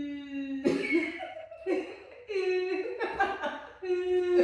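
A voice holding long, steady 'ooooo' sounds, one at the start and another near the end, with chuckling laughter in between.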